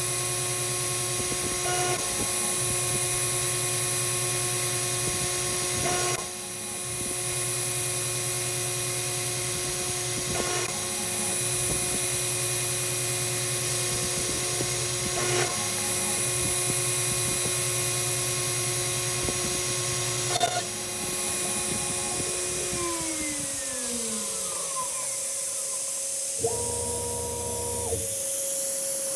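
CNC router spindle milling a brass lock escutcheon plate: a steady whine over a strong hiss from the cutting and the spray nozzle aimed at the cutter, with sharp clicks about every four to five seconds. About three-quarters of the way through, the whine falls in pitch as the spindle winds down, and a short separate hum follows near the end.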